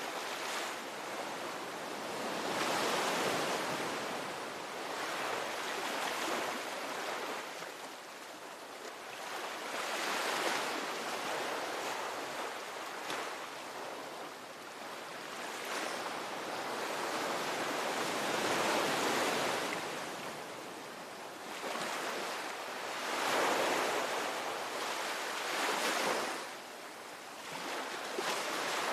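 Ocean waves breaking and washing in, a continuous rush of surf that swells and eases every few seconds.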